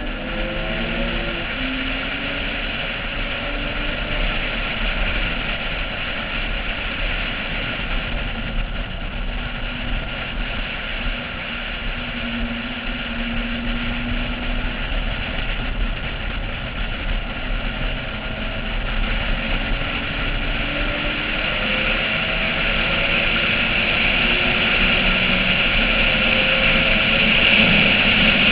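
Porsche 996's flat-six engine at speed on a race track, under heavy wind rush on a roof-mounted camera. The engine pitch keeps stepping up and down as it is driven through the gears, and the sound grows louder over the last third.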